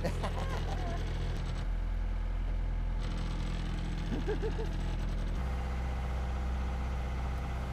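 A sailboat's auxiliary motor running steadily as the boat gets under way, a low hum whose note shifts about two seconds in and again a little past halfway.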